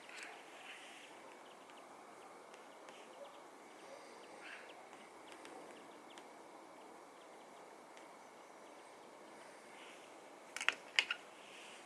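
Quiet room hiss with scattered faint ticks, then a quick run of about four sharp clicks near the end.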